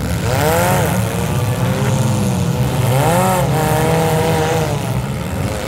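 Engines of several midsize street stock demolition derby cars running together, one revving up and back down twice, about half a second in and again around three seconds in.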